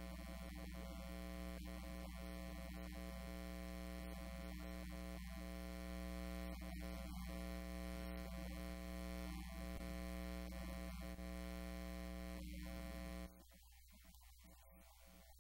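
Steady electrical mains hum, a buzz with many overtones, that cuts off suddenly near the end, leaving a much quieter background.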